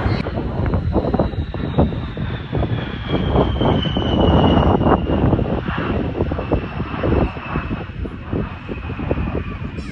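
Blue Angels F/A-18 Super Hornet jet flying past with loud engine noise, loudest about halfway through. A high whine falls steadily in pitch as the jet goes by.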